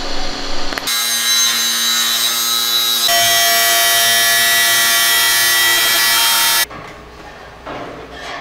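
Angle grinder with a cutoff wheel cutting into the edge of a steel sheet: a steady high whine over a grinding hiss. It starts suddenly about a second in, shifts pitch and grows a little louder around three seconds in, and stops abruptly near the end.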